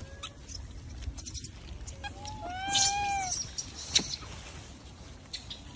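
Macaque coo calls: a short call about two seconds in, then a longer one that rises and falls in pitch. A sharp click about four seconds in.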